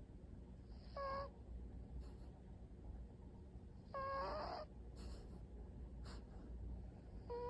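A sleeping cat's nostrils whistling as it breathes, like a tiny flute. There are three short, high whistles about three seconds apart; the middle one is the longest and the last one drops in pitch.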